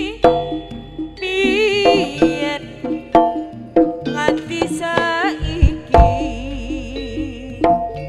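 Live Javanese jaranan gamelan music: kendang drum strokes and struck bronze gongs and kettle gongs, with a wavering melody line over them and deep strokes about five and six seconds in.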